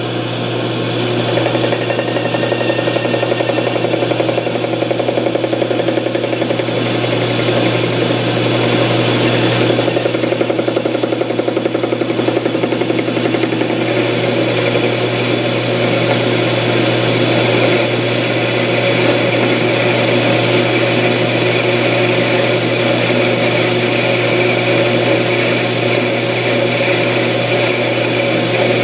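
12-inch Craftsman (Atlas-built) metal lathe running steadily with a steady hum, a cutoff tool in a quick-change tool post cutting into the spinning metal workpiece.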